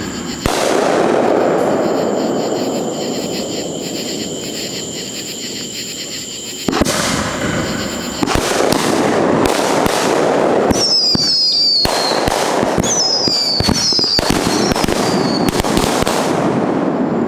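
Fireworks going off: sharp bangs with a dense crackle between them, the bangs coming thick and fast in the second half. A run of short whistling tones sounds from about eleven to fifteen seconds in.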